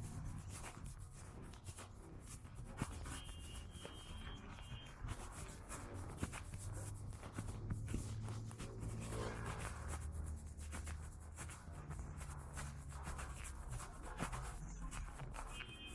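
Footsteps and rubbing noise close to the microphone during a waterfront walk, over a low steady hum of distant city traffic.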